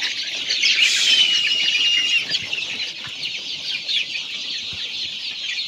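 A large flock of forty-day-old Golden Misri chicks cheeping together in a dense, high-pitched chatter. About a second in, one bird gives a louder drawn-out call lasting about a second.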